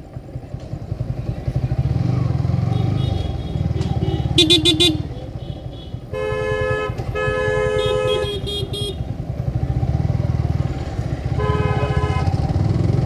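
Motorcycle engine running steadily while riding through town traffic. Vehicle horns honk over it: a short high toot about four and a half seconds in, two longer blasts in the middle, and another short honk near the end.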